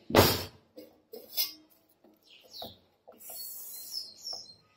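A steel plate lid scraping off a stainless steel pot, loudest right at the start, followed by a few light metallic taps and clinks of a spoon in the pot. Faint high chirps, like a bird outside, come and go in the background.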